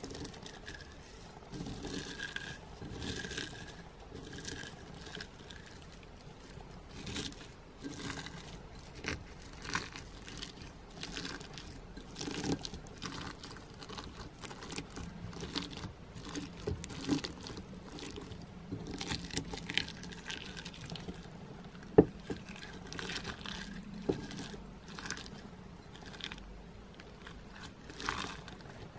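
Fingers stirring and squeezing a pile of plastic snowflake sequins in a glass bowl: an uneven crunchy rustle of many small ticks and crackles, with one sharp tap about two-thirds of the way through.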